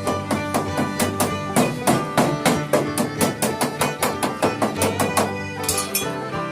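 Instrumental background music: a quick, even run of plucked or struck notes.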